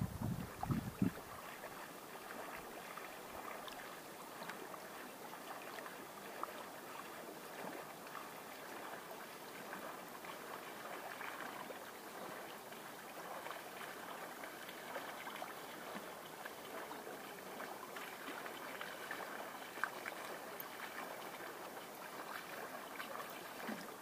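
Upper Volga river water lapping and rippling against a grassy bank, a steady watery rush. A few gusts of wind buffet the microphone in the first second.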